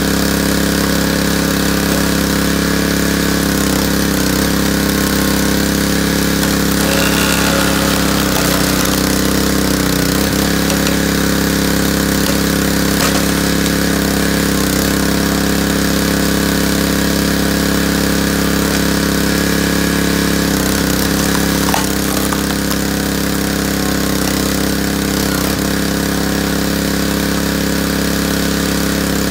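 Small gas engine of a hydraulic log splitter running steadily, its pitch sagging briefly several times as the ram is worked under load. A single sharp snap about three quarters through.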